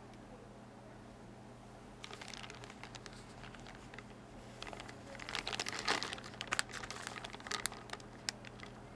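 Clear plastic packaging bag crinkling as it is handled, starting about two seconds in and growing into a dense run of sharp crackles near the middle and end.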